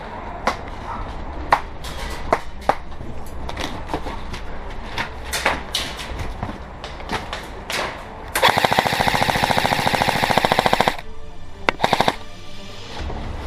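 Airsoft guns firing: scattered single sharp shots, then a rapid full-auto burst of about two and a half seconds starting about eight seconds in, followed by a short quick burst about a second later.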